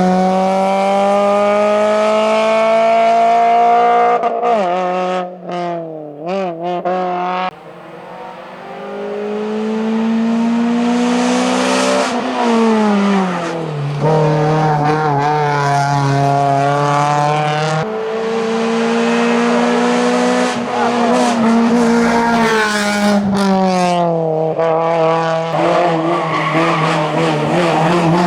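Suzuki Swift Sport hillclimb car driven flat out, its engine rising in pitch under full throttle and dropping back at each of several gear changes. There is a choppy stretch about five seconds in where the revs wobble and the sound dips.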